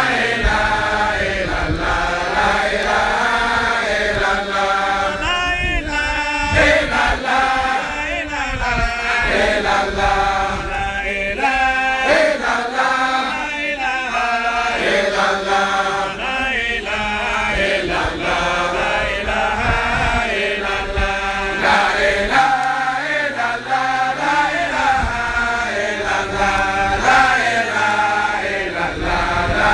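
A group of men chanting together without a break, a sung recitation of the names of God and of the Prophet Muhammad.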